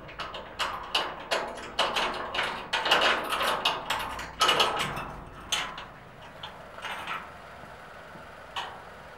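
Irregular knocks and clatters, several a second in the first half, then fewer and fainter after about six seconds.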